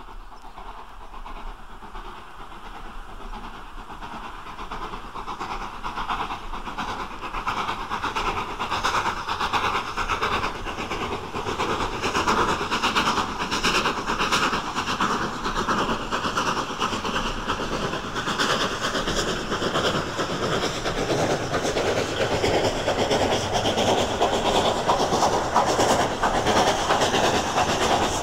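Ex-LNER V2 class 2-6-2 steam locomotive working hard with a freight train up a 1 in 75 gradient, its exhaust and the clatter of the train growing steadily louder as it approaches.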